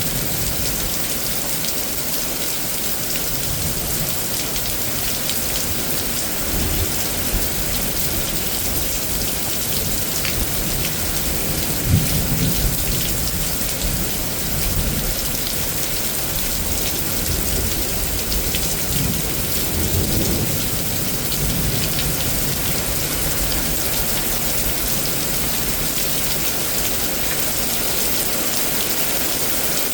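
Steady rain pouring down in a severe thunderstorm, with low rolls of thunder several times. The sharpest and loudest clap comes about twelve seconds in.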